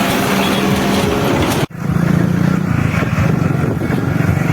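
Tractor engine running steadily under way, a dense low chugging. It cuts out for an instant about one and a half seconds in and then carries on.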